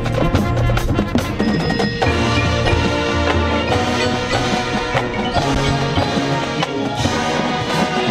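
High school marching band and front ensemble playing, with mallet percussion and drums among the winds. Sharp percussive hits over a heavy low end give way about two seconds in to sustained, many-voiced chords.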